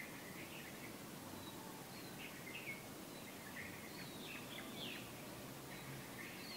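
Small birds chirping and calling in short, quick phrases over a low, steady background noise.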